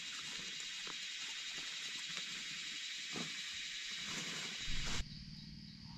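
Steady high chorus of night insects over a forest floor, with a few faint rustles of dry leaves as a mushroom is dug out by hand; the chorus stops abruptly about five seconds in.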